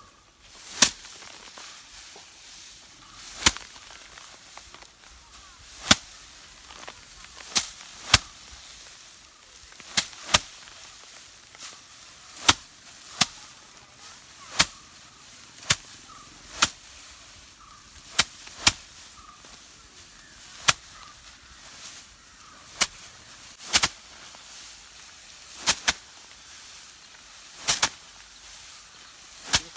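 Hand-threshing of paddy: rice sheaves are struck against a hard surface to knock the grain loose, giving a run of sharp slaps every second or two, some in quick pairs.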